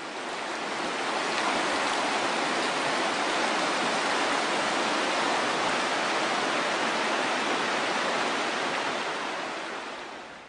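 Sacramento River rushing over rocks in shallow rapids: a steady wash of water noise that fades in at the start and fades out near the end.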